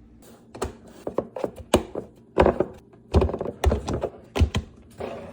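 Kitchenware being handled: a run of irregular knocks and clacks, some sharp and some dull, as things are set down and moved about.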